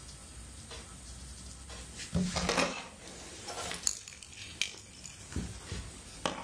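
Small electronic parts and hardware handled and moved about on a wooden tabletop: a cluster of clatter about two seconds in, then a few separate clicks and knocks as items are picked up and set down.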